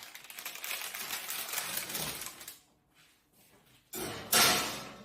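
Rattling, rustling handling noise for about two and a half seconds, then a louder clatter about four seconds in.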